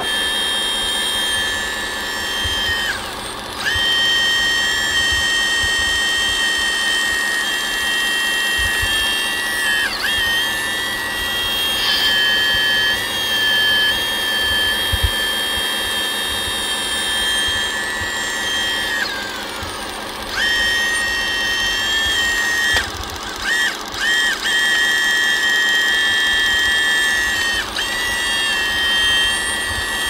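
Steady high-pitched whine of a small electric motor in an RC model machine. It sags in pitch and picks up again about five times, near 3, 10, 20, 23 and 28 seconds in.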